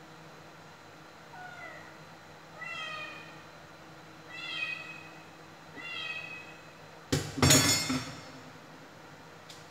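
A domestic cat meows four times, short calls a second or so apart, each bending in pitch. About seven seconds in, a loud clattering scrape of the stainless steel pot being handled drowns everything for about a second.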